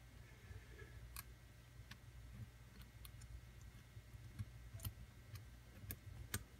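Faint, irregular clicks of a lock pick single-pin picking the pins of a pin-tumbler challenge lock, about nine light ticks spread over a few seconds while the lock sits in a deep false set.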